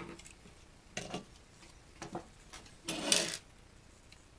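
Parts of a half-dismantled TV antenna unit being handled and set down: separate knocks about one and two seconds in, then a longer clatter of plastic and metal near three seconds.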